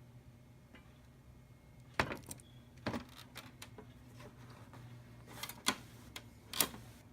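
A series of sharp clicks and knocks, the loudest about two seconds in and two more near the end, with lighter ticks between, over a low steady hum.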